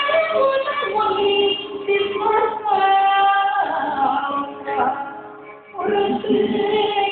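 Music with a woman singing long, held notes, the melody stepping between sustained pitches. The sound drops away briefly about five and a half seconds in, then the singing and music resume.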